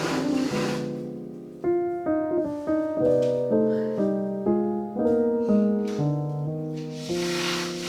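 Background piano music, a gentle melody of sustained notes. A soft hiss or rustle rises under it about seven seconds in.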